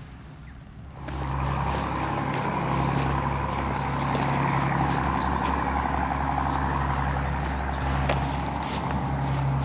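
Motorcycle engine running steadily, most likely the Honda Grom's. It comes in suddenly about a second in, with a steady low hum and a rushing noise over it.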